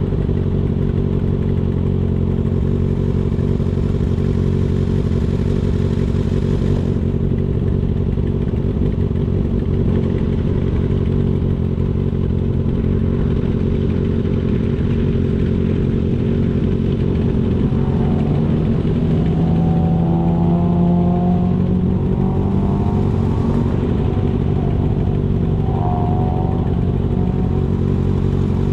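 Kawasaki ZX-6R inline-four motorcycle engine running steadily at an even pace while riding. A wavering higher tone joins briefly a little past the middle.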